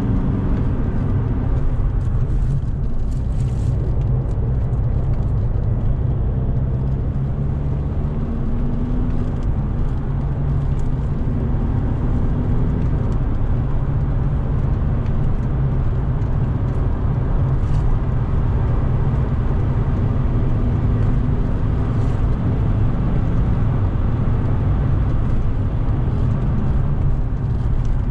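A VW Golf Mk5's 2.0 TDI PD four-cylinder diesel engine pulling hard on track. Road and tyre noise run underneath it, and the engine note rises and falls with the revs.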